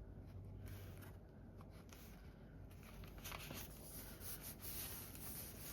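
Faint rustling and rubbing of paper as journal pages and cards are handled and pressed down, quiet at first and busier from about three seconds in.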